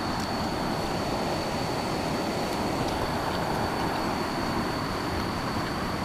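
Steady rushing of river water flowing over rocks, with a thin, steady high-pitched tone above it.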